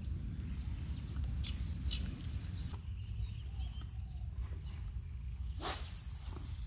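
Steady low wind rumble on the microphone in an open wetland, with faint bird chirps and one brief loud swish or rustle near the end.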